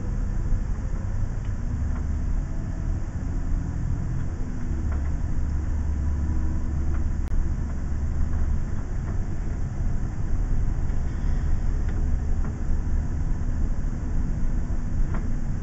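A 43-foot tag-axle motorhome driving slowly on a paved road: a steady low rumble of engine and tyres, with a few faint clicks and rattles.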